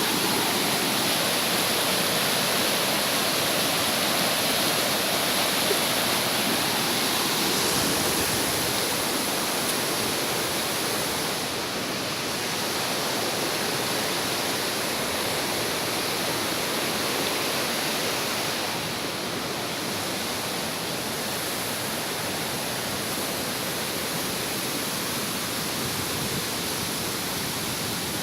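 Fast-flowing river water rushing steadily, a strong current, easing slightly in level about a third of the way through.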